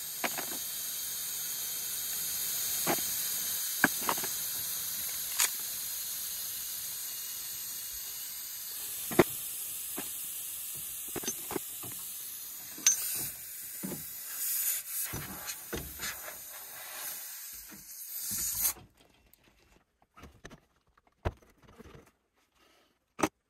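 Air hissing steadily out of a punctured tyre through the reamed hole during a plug repair, with small clicks and knocks from the repair tools. The hiss cuts off suddenly about three-quarters of the way in, leaving only a few taps.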